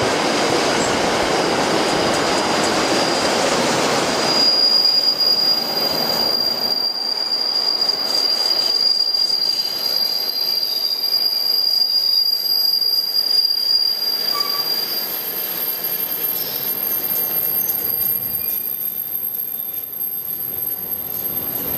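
Empty intermodal container flat wagons of a freight train rolling past close by, wheels running over the rails. The deep rumble drops away after about four seconds, and a steady high-pitched wheel squeal is heard from then until about fifteen seconds in.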